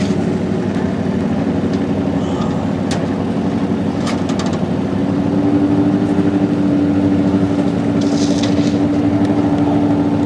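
A vehicle engine running steadily nearby. About five seconds in it picks up to a higher, louder, even note and holds there.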